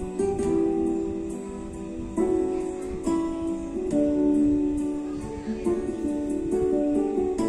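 Guitar music: plucked notes and strummed chords, changing every second or so, with no singing.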